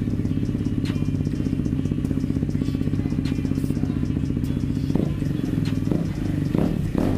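KTM RC 390's single-cylinder engine idling steadily through a replica CR Racefit exhaust, with a few short throttle blips from about five seconds in.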